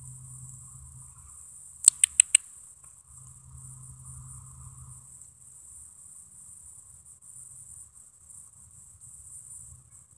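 Crickets chirping in a steady high-pitched drone, with four sharp clicks in quick succession about two seconds in.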